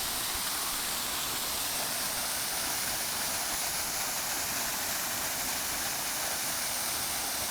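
Steady rushing of a waterfall with a drop of about 35 to 40 feet, an even roar of falling water.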